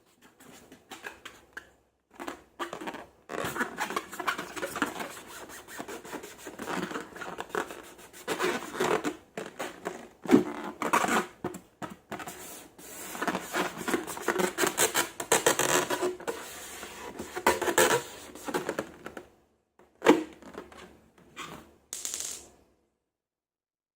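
Slime being squeezed and poked by hand, giving rapid wet clicks and crackles in irregular runs with short pauses, stopping abruptly near the end.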